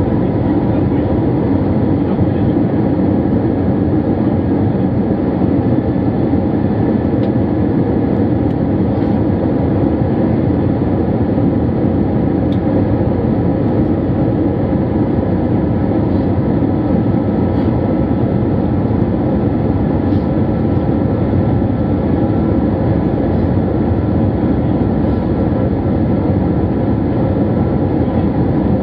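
Airbus A321 cabin noise heard from a window seat over the wing: steady engine drone and airflow, with a faint steady whine above it.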